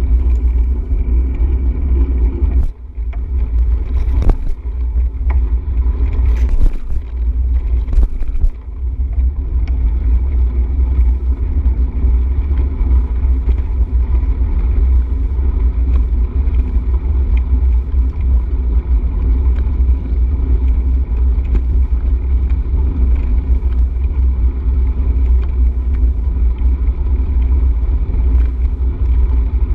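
Steady low rumble of wind buffeting the microphone and wheels rolling along the trail, as heard from a camera riding on a moving bicycle. A few short knocks and dropouts come between about three and nine seconds in.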